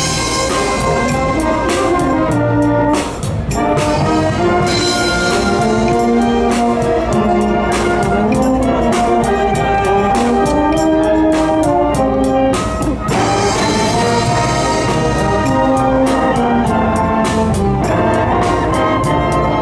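School wind band playing live, a brass-led tune with trumpets and trombones over sousaphone and a steady drum-kit beat, the sound briefly thinning between phrases about three seconds in and again near thirteen seconds.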